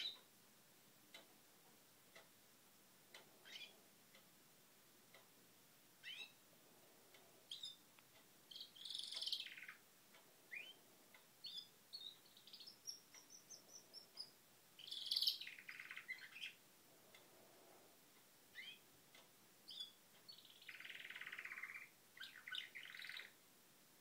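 Canaries chirping and singing faintly in short, scattered phrases with pauses between them. About halfway through comes a quick run of notes that rises and then falls.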